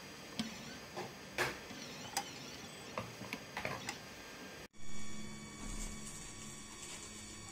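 Mini CNC engraving machine plotting with a marker pen, its stepper motors moving the head: irregular ticks and clicks, then, after a brief dropout a little past halfway, a steadier whine and hum.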